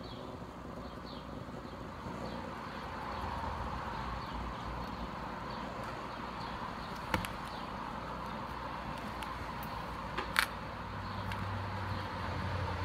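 Steady low hum with faint rustling from a rag and a plastic helmet being handled, and two sharp clicks about three seconds apart, the second louder.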